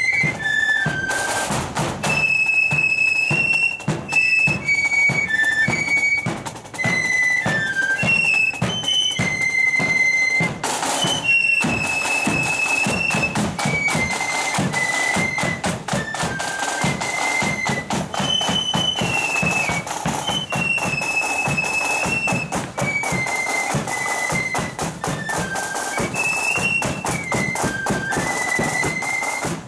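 Marching flute band playing a tune: many flutes in unison carry a high, stepwise melody over a steady beat of snare and bass drums.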